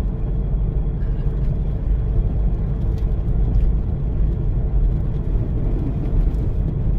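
All-wheel-drive SUV driving through thick snow: a steady low rumble of engine and tyres.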